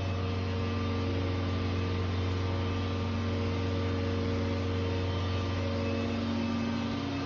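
A steady, unchanging mechanical drone: a strong low hum with a few constant higher tones over a hiss, loud enough to be the early-morning noise complained about.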